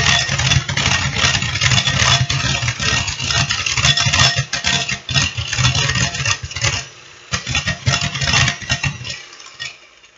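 Electric hand mixer running on high speed, its beaters whipping heavy cream in a glass bowl; the motor stops about nine seconds in. The cream is partway whipped, still loose and short of holding its shape.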